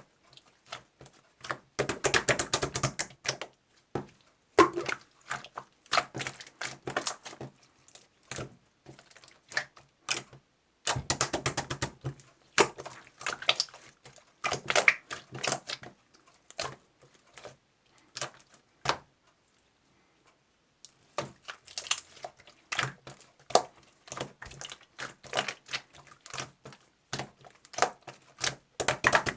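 Rapid light clicking in bursts of one to three seconds, with short pauses between and a longer pause about two-thirds of the way through.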